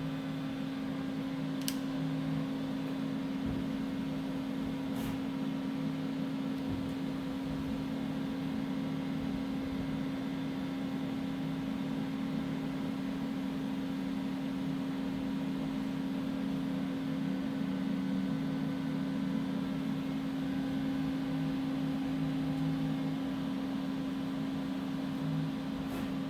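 Doosan Puma 4100LB CNC turning center running with its spindle turning at a steady speed: a constant machine hum with a steady tone over it. A couple of faint ticks come in the first few seconds.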